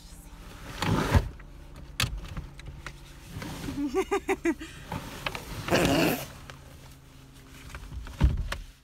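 Bags and a fabric rucksack being pushed and packed into the back seat of a car: rustling and shuffling with a few sharp thumps, the loudest about a second in and near the end. Around the middle comes a brief, rapid run of short pitched sounds.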